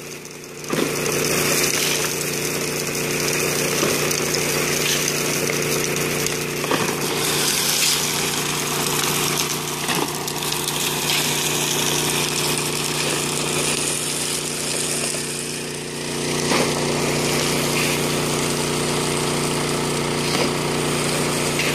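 Small gasoline engine of a portable water pump running steadily, feeding water through a sluice box, with water rushing over the sluice.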